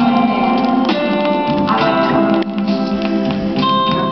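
Music with guitar playing from a vinyl record on an old-school record player.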